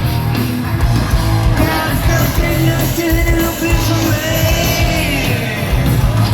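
Thrash metal band playing live at full volume: distorted electric guitars, bass and drums under a sung lead vocal, with a held sung note in the middle.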